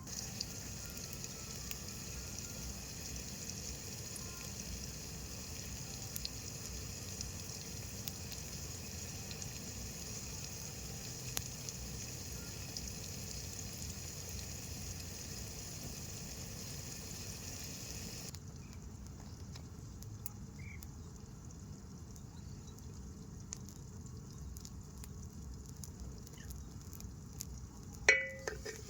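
Onion, tomato and green chilli frying in oil in a covered pan: a steady sizzle that drops abruptly to a quieter level about two-thirds of the way through. Near the end comes a sharp clatter of metal cookware.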